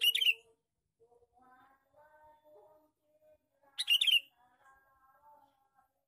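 Male sooty-headed bulbul (kutilang) calling: two loud, quick chattering calls about four seconds apart, with softer, lower warbling notes between them.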